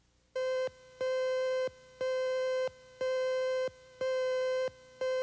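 An electronic tone beeping about once a second, six beeps of one steady, buzzy mid-pitched note, each lasting most of a second, the first one shorter.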